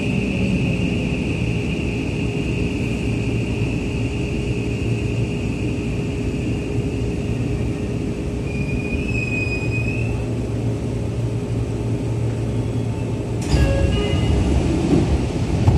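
Seibu 6000-series commuter train's running noise from inside the car as it slows into a subway station, a steady rumble with a high whine that stops about ten seconds in as the train comes to rest. About 13 seconds in, the doors open with a clunk and a short chime.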